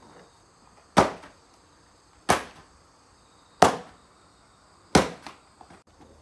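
A doormat being beaten to knock the dust out: four sharp thwacks, evenly spaced about a second and a quarter apart. Faint insect chirring continues underneath.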